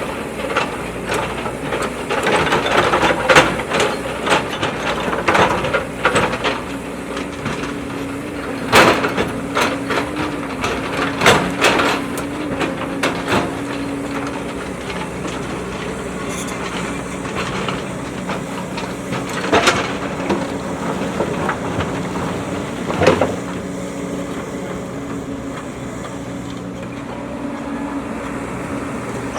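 JCB backhoe loader's diesel engine running steadily under work, with many sharp knocks and clanks that are frequent in the first half, then a few louder single knocks later on.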